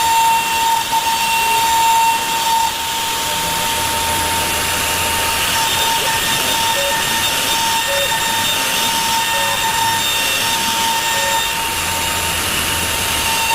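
CNC router spindle running with a steady high whine while its bit clears wood in a rough carving pass. The cutting noise is uneven for the first couple of seconds, then evens out.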